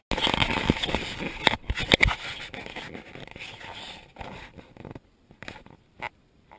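Scraping and rustling of branches, needles and dirt as someone scrambles through steep brush, loudest with a few knocks for about the first two seconds, then fainter, with only scattered clicks near the end.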